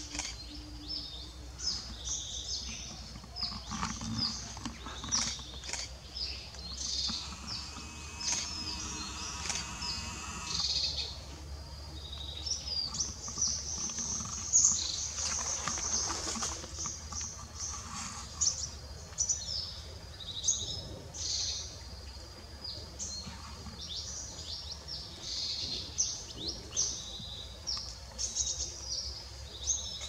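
Several birds chirping and calling at once, many short high-pitched notes overlapping throughout.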